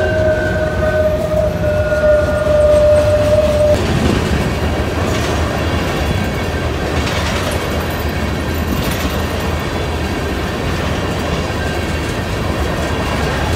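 Freight train cars, autoracks and then tank cars, rolling past close by with a steady rumble and clatter of wheels on rail. A steady high tone runs over it for about the first four seconds, then stops.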